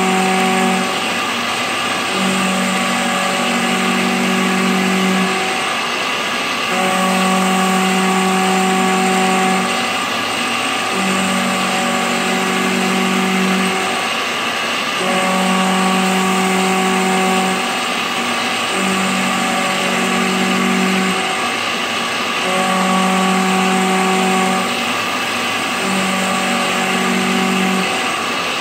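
CNC mill's end mill cutting a pocket in cast iron: a steady machining noise with a pitched hum that comes and goes in stretches of two to three seconds, with short breaks between them.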